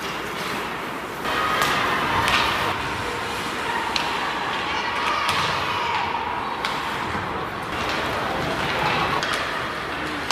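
Ice hockey play in an indoor rink: a handful of sharp clacks of sticks and puck over a steady wash of skating and arena noise, with distant voices calling.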